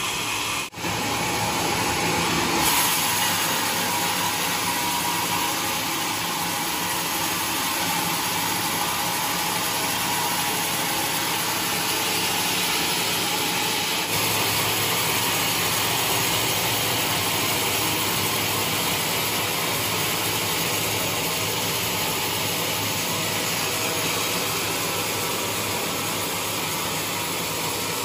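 Sawmill band saw running and cutting lengthwise through a large trembesi hardwood log, a steady whirring noise of blade and machinery. It drops out briefly just under a second in.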